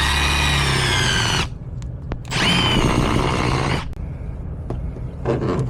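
A small electric power-tool motor whirring in two bursts of about a second and a half each, with a short pause between them.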